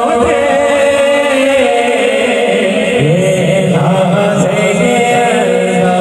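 Male voice reciting a naat in a slow chant, holding long, drawn-out notes, with a lower held note joining about halfway through.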